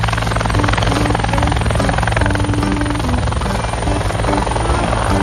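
Helicopter rotor blades chopping at a fast steady rate, with a thin high engine whine above them.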